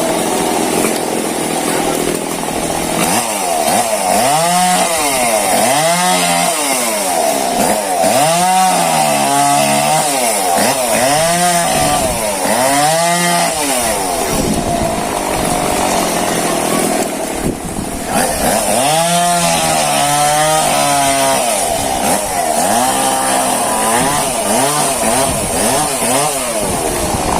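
Two-stroke chainsaw cutting through a fallen tree trunk, its engine pitch repeatedly rising and dropping as the chain bites into the wood, with stretches of steadier running in between.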